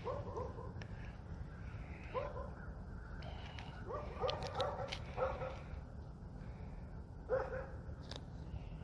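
A dog whining in short high yips, several times over, with a cluster of quick whines in the middle, over a steady low hum.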